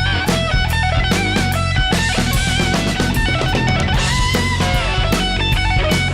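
Live rock band playing an instrumental passage: an electric guitar lead line with bent, wavering notes over bass guitar and a drum kit keeping a steady beat.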